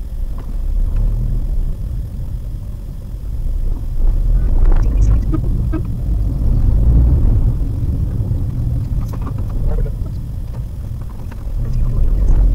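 Low, steady rumble of a Maruti Suzuki WagonR driving slowly along a rough road, heard from inside the cabin. It swells a little about a third of the way in and again near the end.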